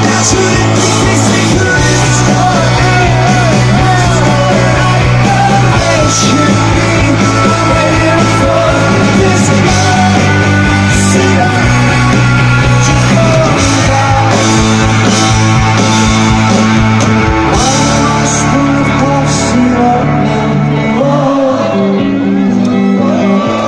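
Live rock band playing, with a sung vocal over bass, guitars and drums with crashing cymbals. Near the end the cymbal crashes drop out and the band plays a little softer.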